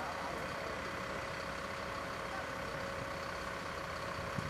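Fire engine's engine running steadily at the scene of a fire, driving its water pump for the connected hose lines, with a constant whine. There is a small click near the end.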